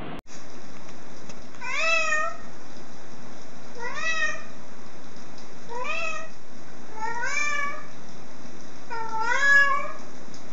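Black-and-white cat meowing five times, about every two seconds, each meow rising in pitch, over a steady background hiss.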